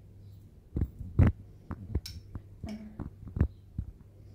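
A metal teaspoon patting and spreading fish roe over the rice of a sushi roll: a run of soft knocks and taps, the loudest about a second in, over a steady low hum.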